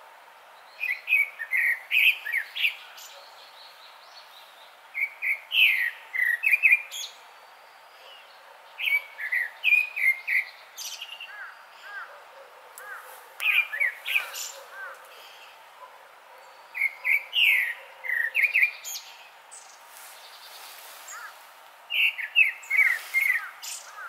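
Grey-backed thrush singing: six loud phrases of short fluty whistled notes about four seconds apart, each ending in a few thin, very high notes.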